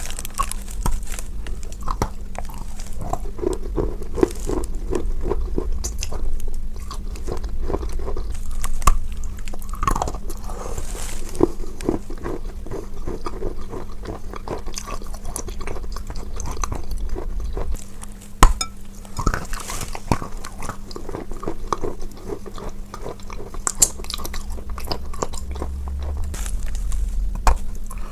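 Close-miked biting and chewing of chalk eaten with paste: continuous crunching with sharp snaps now and then, the loudest about two-thirds of the way through.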